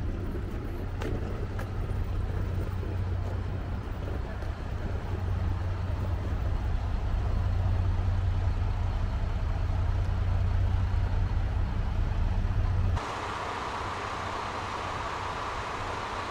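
Diesel railcar engine of the Shikoku Mannaka Sennen Monogatari train running at the platform with a steady low hum that grows louder. About three quarters through it cuts off abruptly to a lighter, higher steady hiss.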